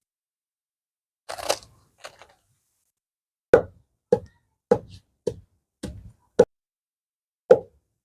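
A brief rustle, then seven short dull knocks, most about half a second apart with a longer pause before the last.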